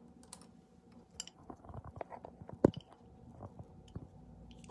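Handling noise from a handheld phone: scattered soft clicks and rubs with one sharp knock about two and a half seconds in, over a faint steady hum.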